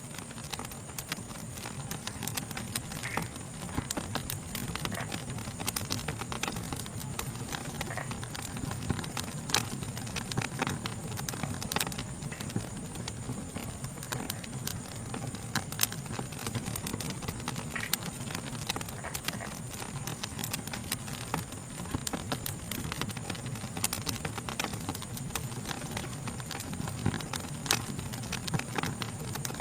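Wood fire crackling, with irregular sharp snaps and pops over a low, steady rumble of burning. A steady, high-pitched insect chorus runs behind it.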